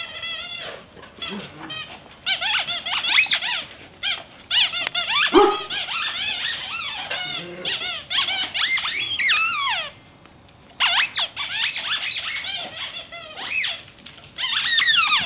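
A squeaky dog toy squeaking over and over in quick runs of short, high squeals as a dog chews it, with a brief pause about ten seconds in.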